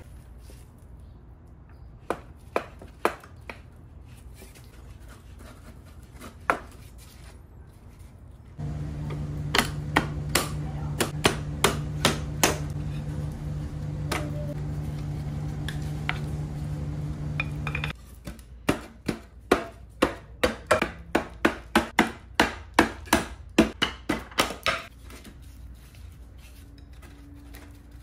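Sharp wooden knocks and taps from work on an old wooden chair frame, with a quick even run of about two to three knocks a second in the later part. A steady machine hum starts and stops abruptly in the middle stretch.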